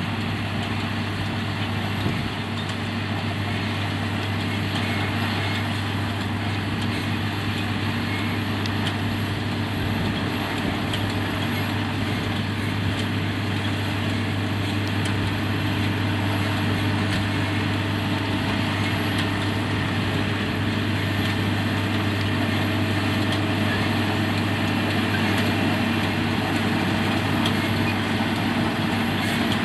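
Heavy farm machinery running steadily at working speed: a constant engine drone with mechanical noise over it and a single knock about two seconds in.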